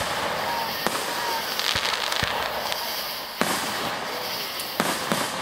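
Aerial firework shells bursting: several sharp bangs a second or so apart, with a stretch of crackling about a second and a half in.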